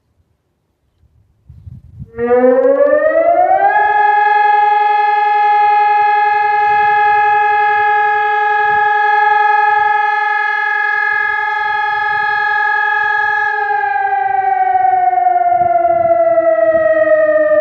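SES 1200 siren starting up. Its pitch rises for about two seconds, holds one steady tone for about ten seconds, then slowly falls near the end.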